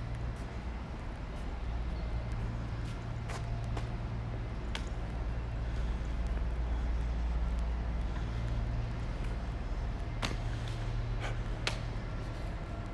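Road traffic: a steady low vehicle engine rumble, with a few sharp clicks.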